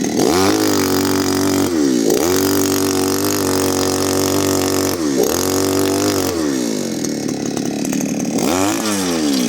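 Small petrol engine of a soil auger revving up and down four times, held high for a second or three each time, with a lower, steadier stretch in between near the end.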